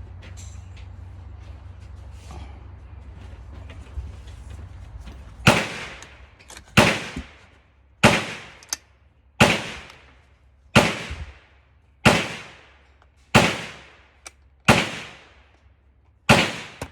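Nine rifle shots from an AR-15 in 5.56, fired singly at an even pace of about one every 1.3 seconds and starting about five seconds in, each with a sharp crack and a decaying echo.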